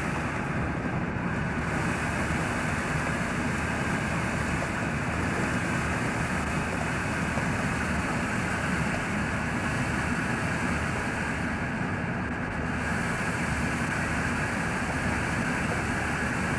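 Steady noise of machinery and ventilation aboard an Oberon-class diesel-electric submarine, with a low hum underneath and no change throughout.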